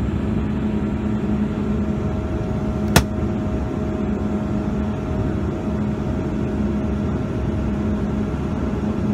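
Steady cabin drone of a CRJ-200 airliner in cruise: its rear-mounted GE CF34 turbofans and the airflow along the fuselage, with a constant hum and a few fixed tones. A single sharp click about three seconds in.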